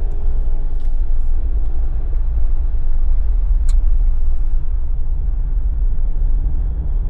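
A Jeep on BFGoodrich KO3 all-terrain tyres driving at steady speed, giving a continuous low road rumble. A brief click sounds about three and a half seconds in.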